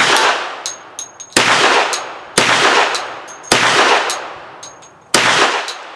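Hi-Point 1095 Yeti 10mm pistol firing 230-grain hard cast rounds: five shots about a second apart, each with a long fading echo and small metallic clinks between them. The pistol cycles every round without a malfunction.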